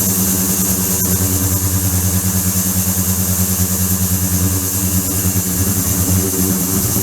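Ultrasonic equipment running steadily: a constant low electrical hum with a high hiss on top.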